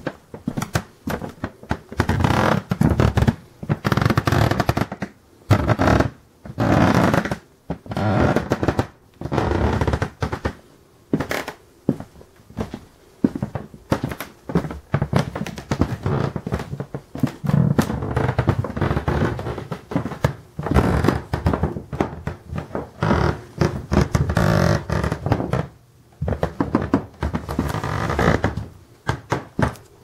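Creaky wooden floorboards creaking loudly under footsteps as someone walks over them. There is a long drawn-out creak with nearly every step, coming one after another every second or two with short pauses between.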